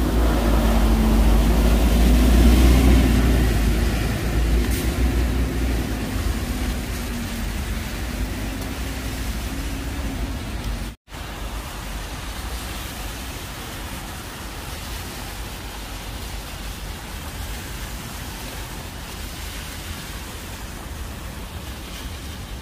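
City street in heavy rain: a steady hiss of rain and wet-road traffic, with a passing vehicle's engine hum and low rumble loudest a couple of seconds in and fading away. The sound cuts out for an instant about halfway through, then the rain and traffic hiss goes on more evenly.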